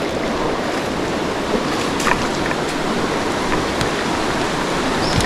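Steady rushing of river water together with heavy rain falling.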